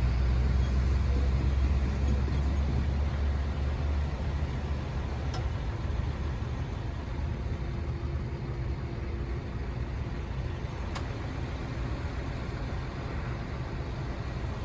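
Diesel locomotive engine rumbling low and steady, its drone easing off about four seconds in and then holding at a lower level.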